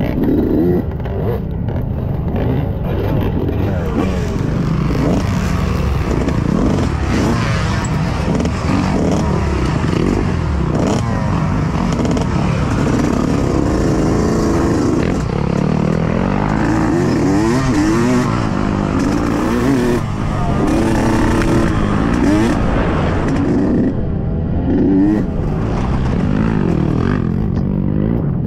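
Yamaha YZ125X two-stroke dirt bike engine revving up and down over and over while being ridden hard, its pitch rising and falling every second or two, with knocks and rattles throughout.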